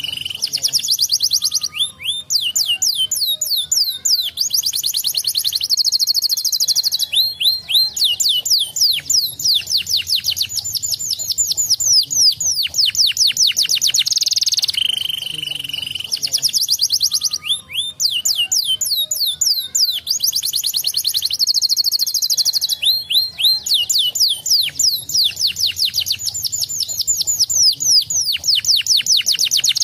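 Domestic canary singing: long fast trills of quick downsweeping notes, broken by a held whistled note, with the same run of phrases coming round again about halfway through.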